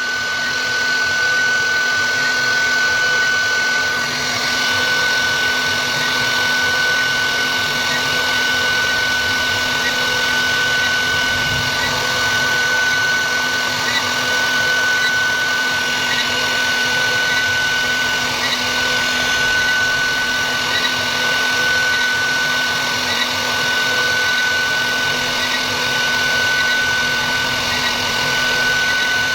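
CNC router spindle running with a steady high-pitched whine over the rough noise of the bit cutting wood, unchanging throughout.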